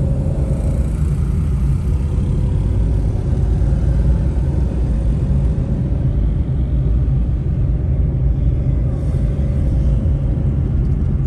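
Steady low rumble of a car's engine and road noise, heard from inside the cabin of the moving car.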